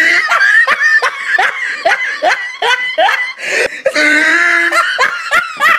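Hearty laughter: a string of short, rising 'ha' bursts, about two to three a second, with a drawn-out high squeal of laughter about four seconds in.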